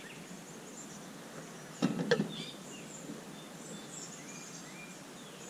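Quiet outdoor background with birds chirping faintly. About two seconds in there is a brief clatter of a few knocks, from the metal train-horn bells being handled as they come out of the box.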